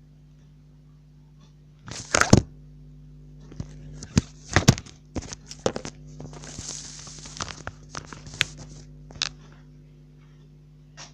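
Slime being pressed and stretched by hand, giving a run of sharp sticky clicks and crackling pops. The loudest are about two seconds in and again around four and a half seconds, and they die away after about nine seconds.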